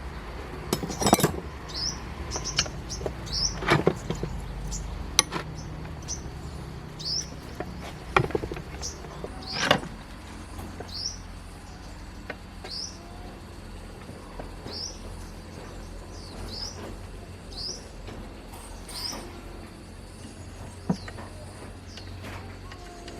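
A bird chirping over and over, short high notes that fall in pitch, about one a second. Several sharp knocks and clatters of handled parts come in the first half, over a low steady hum.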